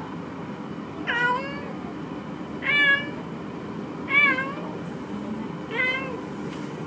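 A Minuet cat gives four short meows, about one and a half seconds apart. It is the call this cat makes when it has caught its favourite toy and is showing it off.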